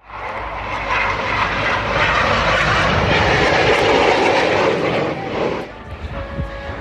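An F/A-18 Hornet's twin jet engines roaring as the fighter flies a low display pass, building to their loudest around the middle and falling away near the end.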